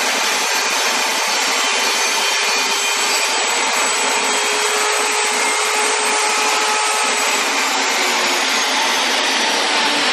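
Jobsite table saw running loud and steady while a thin strip of wood is ripped from a board. About two-thirds of the way through, its high whine starts to fall in pitch as the saw winds down.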